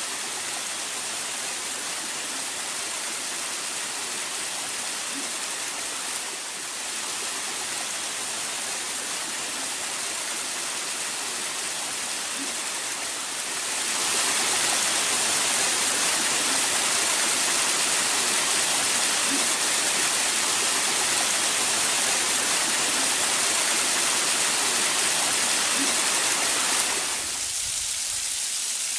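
Steady rush of falling water from a waterfall, a dense hiss with no rhythm. It grows louder about halfway through and drops back sharply near the end.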